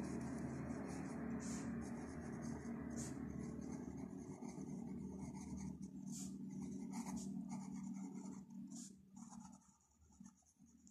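Pen nib scratching across lined notebook paper in short cursive strokes, over a steady low hum that fades out about eight seconds in.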